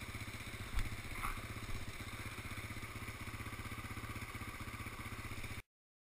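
Single-cylinder Yamaha ATV engine running at low revs with an even pulse, with a sharp knock about a second in and a few smaller clunks as the quad rolls over rough ground. The sound cuts off abruptly near the end.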